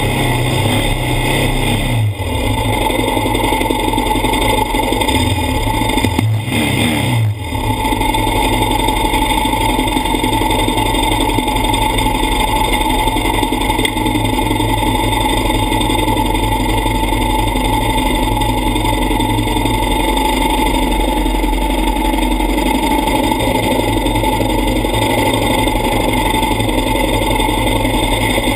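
Quad ATV engines running and revving, with the engine note changing briefly near the start and again around six to seven seconds in.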